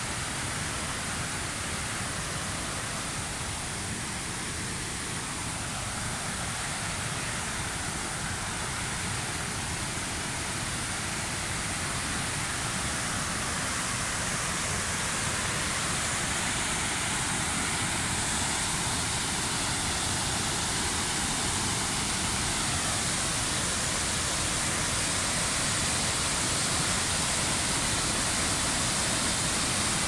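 Waterfall rushing: a steady wash of falling water that grows gradually louder over the stretch.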